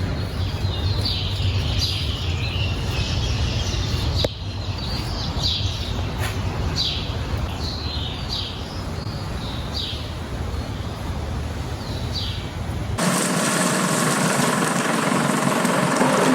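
Small birds chirping, short high falling calls about once a second, over a steady low rumble. About thirteen seconds in the sound cuts abruptly to a steady engine running.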